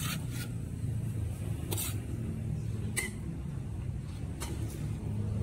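A few light clicks and clinks of serving utensils against a large aluminium pot and a plastic plate as fried rice vermicelli is dished out, over a steady low rumble.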